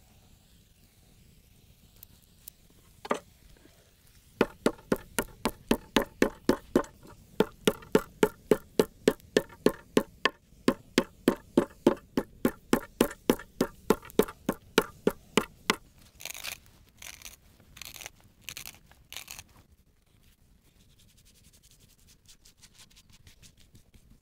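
Wooden meat mallet pounding slices of beef tenderloin flat on a wooden cutting board: a long run of quick, even thuds, about three or four a second. A single knock comes before it, and a few short scratchy sounds follow it.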